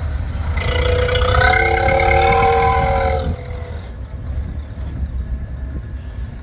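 Classic car engine rumbling at low speed. A long pitched tone, several notes stacked together, starts about half a second in and holds for about two and a half seconds before it stops.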